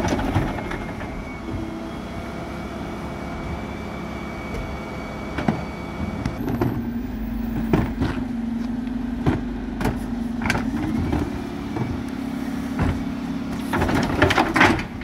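Dennis Elite 6 refuse truck running at the kerb, a steady hum that steps up to a stronger, higher drone about six seconds in. Over it, plastic wheelie bins knock and clatter as they are wheeled up to the rear bin lift and hooked on, with a burst of clunks near the end.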